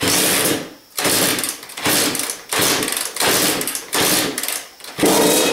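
Honda CR85R's 85 cc two-stroke single-cylinder engine being kickstarted with the choke on for its first start after a rebuild: about five kicks, each a rasping turn-over under a second long, about a second apart. Near the end it catches and keeps running with a fast, even pulse.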